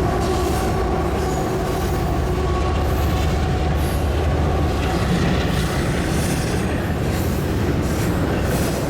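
Eastbound Union Pacific train rolling past: a steady, loud rumble of rail cars on the track, with a thin high wheel squeal in the middle.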